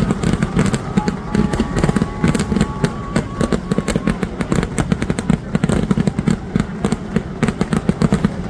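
Fireworks going off in a dense, unbroken barrage, many sharp bangs every second with heavy low booms underneath.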